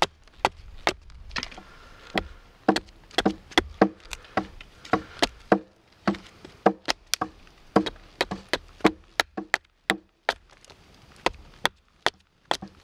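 Hatchet chopping into a wooden spoon-ladle blank held upright on a stump chopping block. It lands sharp strikes about two to three a second, each knocking chips off the blank, with a couple of brief pauses in the second half.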